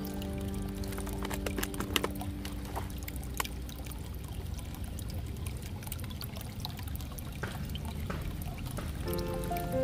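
A few light clicks and taps from small die-cast toy cars being handled, over a steady hiss of outdoor background noise. Background music fades out in the first few seconds and comes back near the end.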